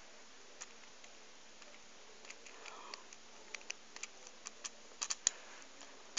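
Faint, scattered small clicks and taps of a plastic toy figure being handled close to a phone's microphone, a few at first and coming more often in the second half.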